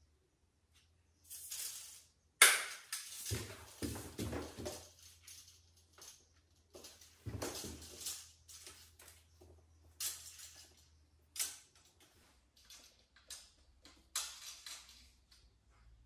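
Top-reading tape measure being handled against a plastered wall: a sharp click about two and a half seconds in, then irregular scraping and clicking of the blade, with short scratches of a pencil marking the plaster near the end.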